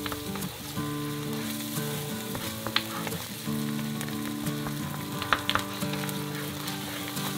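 Gochujang seasoning sauce (oil, chili powder, soy sauce, gochujang, cooking wine and syrup) bubbling and sizzling on low heat in a nonstick frying pan while being stirred with a wooden spoon, with a few sharp clicks of the spoon against the pan. Steady background music plays underneath.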